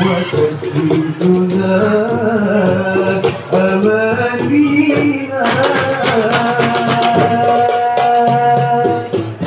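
Marawis ensemble playing: a boy lead singer sings an ornamented Arabic-style melody into a microphone over small marawis hand drums and a large hajir barrel drum. About five and a half seconds in he holds one long note, with the drumming going on under it.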